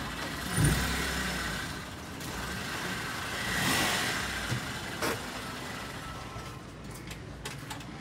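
A motor vehicle engine running steadily, with a thump about half a second in and a swell of noise around the middle. A few light clicks come near the end.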